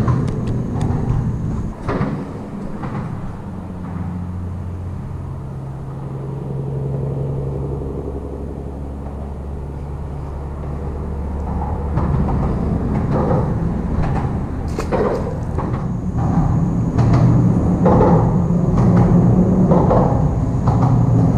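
Low rumble of vehicles passing on the bridge, with engine tones that rise and fall over several seconds, then a run of scattered knocks and thumps in the second half.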